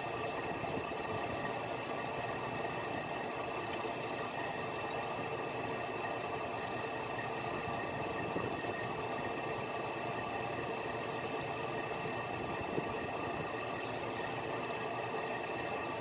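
Fishing boat's engine running steadily at an even speed, with a steady whine above it.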